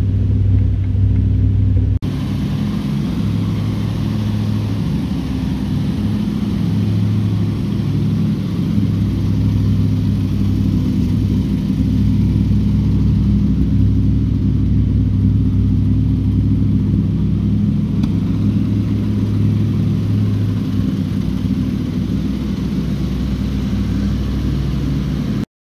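Triumph Stag's 3.0-litre V8 engine idling steadily.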